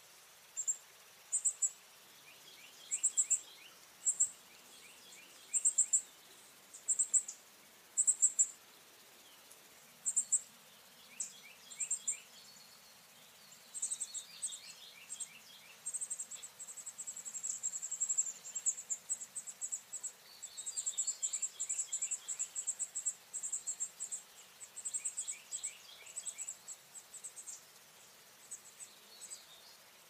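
Northern cardinal fledgling calling: short clusters of very high, rapid chips about once a second, becoming denser and nearly continuous about halfway through, then thinning out near the end. Fainter, lower rapid chirping sounds behind them.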